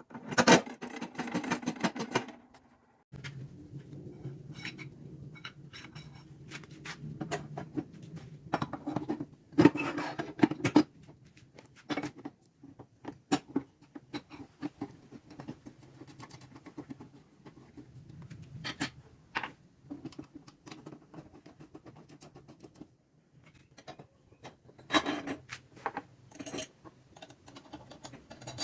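Irregular clinks, knocks and scrapes of metal parts and tools being handled and fitted, over a low steady hum.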